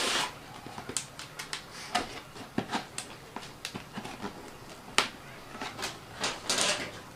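Irregular clicks, taps and brief rustles of packaging being handled as a camera box is unpacked, with a sharper knock about five seconds in.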